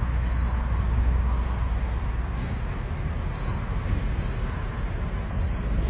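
An insect chirping in short, high trilled chirps about once a second, over a steady low rumble.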